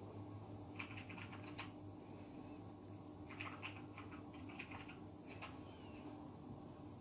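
Faint clicking and tapping in short irregular runs, like typing, over a low steady hum.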